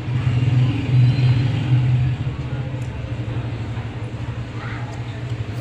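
Steady low hum or rumble, a little louder in the first two seconds, with a few faint small ticks.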